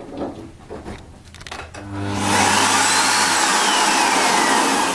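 Miele S5311 canister vacuum cleaner switched on about two seconds in, its freshly replaced motor spinning up to a loud, steady rush of air. It runs smoothly, without the awful noise of the old motor, which had been damaged by dirt from a burst bag.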